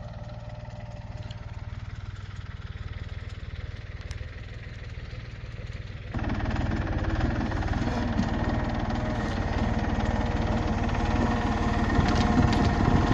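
Tractor engine idling steadily, growing suddenly louder about six seconds in.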